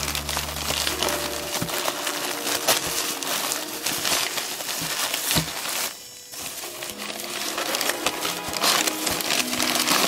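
Packing paper crumpling and rustling as it is handled and pulled out of a cardboard box, with a brief lull about six seconds in. Background music plays quietly underneath.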